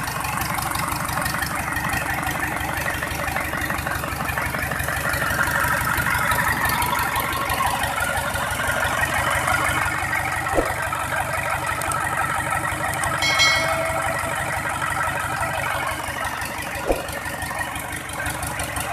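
Freshly reassembled Mitsubishi PS 120 diesel engine running steadily at idle, with a fast, even clatter. A couple of sharp clicks and a brief metallic ring sound over it.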